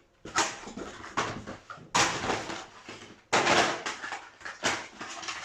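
Trading-card box packaging handled by hand: a series of rustling, scraping bursts, about one every second or so, the loudest about two and three and a half seconds in.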